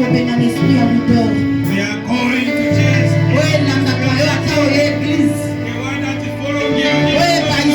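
Church worship music: voices singing over instrumental accompaniment, with a low bass note held for several seconds in the middle.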